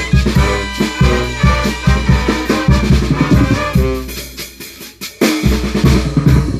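Oaxacan brass band playing, with bass drum and snare keeping a steady beat under the wind instruments. The music thins out about four seconds in, then the full band comes back in about a second later.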